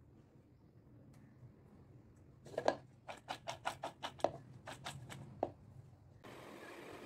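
Raw julienned potato sticks being handled in a stainless steel bowl: about a dozen quick light knocks and clatters against the steel over some three seconds. A steady hiss comes in suddenly near the end.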